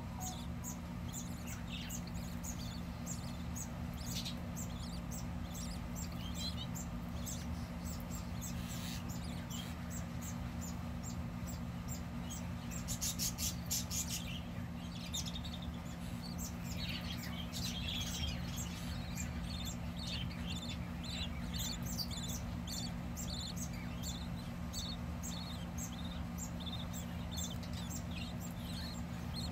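Budgerigars in a nest box, newly hatched chicks and their hen, give many short, high chirps, with a denser run of chirps about thirteen seconds in, over a steady low hum.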